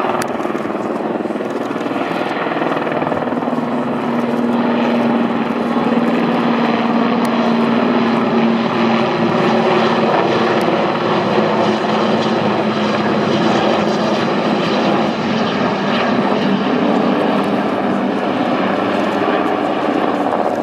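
Two Super Puma helicopters flying past: steady rotor and turbine noise, with a low drone that rises a little in pitch a few seconds in.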